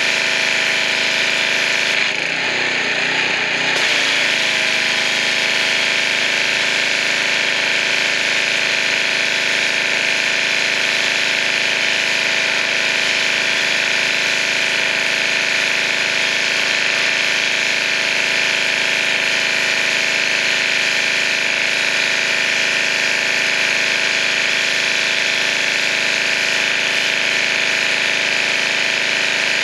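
Pressure washer running steadily, a constant motor drone under the hiss of the water spray, with a brief change in the sound about two seconds in.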